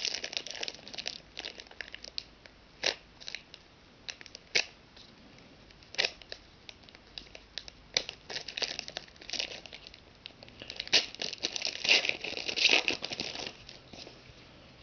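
Foil trading-card pack wrapper being torn open and crinkled in the hands, a run of sharp crackles that starts sparse and grows dense and busy past the middle.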